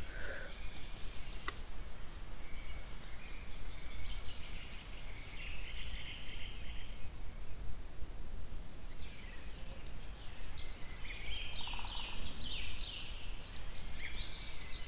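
Steady low background hum from the recording room with faint bird chirps, in scattered runs about a third of the way in and again in the second half, and a few faint clicks.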